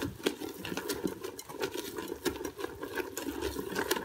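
Thick almond cake batter being stirred quickly by hand in a bowl: a rapid, irregular run of clicks and taps of the utensil against the bowl, with wet slapping of the batter.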